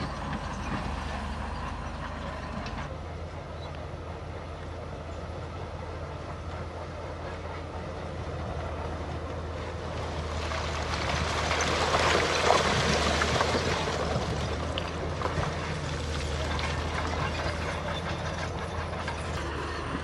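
Heavy diesel engine of a bulldozer running steadily under load, with a crackling, grinding clatter of tracks and stone that swells about halfway through and then fades.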